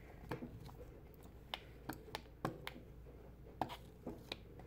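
A plastic Speed Stick deodorant stick rubbed over toilet paper on a tabletop makes a scatter of irregular light clicks and taps.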